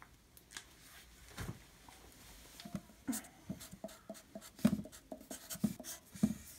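Sharpie felt-tip marker writing on a sheet of paper: a couple of light taps at first, then from about two and a half seconds in a quick run of short strokes as capital letters are drawn.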